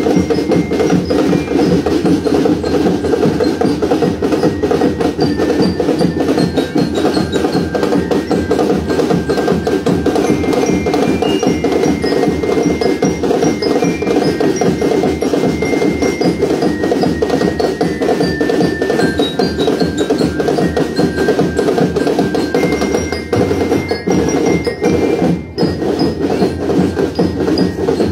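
Drum and lyre band playing: bell lyres ring a stepping melody over continuous drumming.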